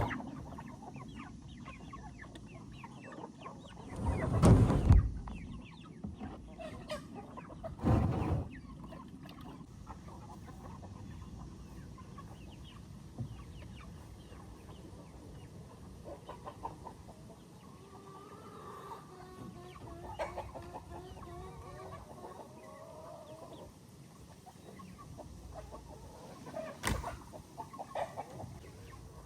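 Chickens clucking around the listener, with a wavering call in the middle. Two loud rushing bursts come about four and eight seconds in, and a sharp knock near the end.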